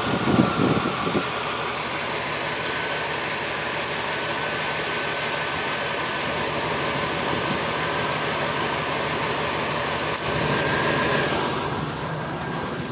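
Ford E-350 van's diesel engine running steadily, heard close up from the engine bay, on a cold start after the van has sat for 14 months.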